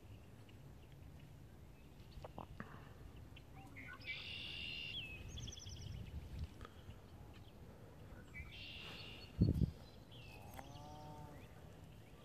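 Birds singing in scrub, with two clear song phrases, a single low thump about nine and a half seconds in, and a sheep bleating near the end.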